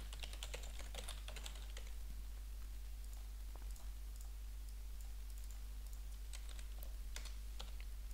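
Computer keyboard typing: quick runs of keystrokes, densest in the first couple of seconds, then scattered single clicks, over a steady low hum.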